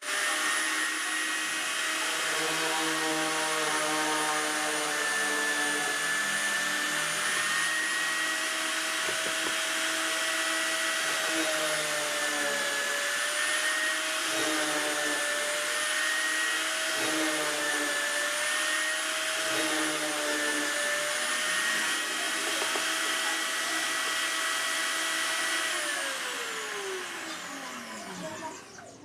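Electric power tool's motor running steadily at high speed with a high whine, its pitch dipping slightly now and then as if under load; near the end it is switched off and winds down, the whine falling in pitch.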